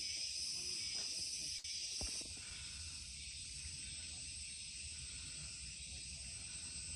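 Forest insects keep up a steady, high buzzing chorus. The loudest part of the buzz cuts off about two seconds in, leaving a thinner, higher drone.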